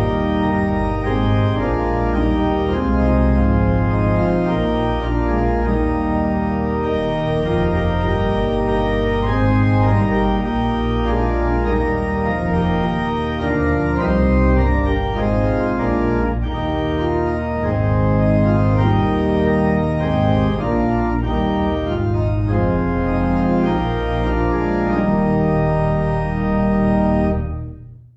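An organ playing held chords over moving bass notes, stopping abruptly near the end.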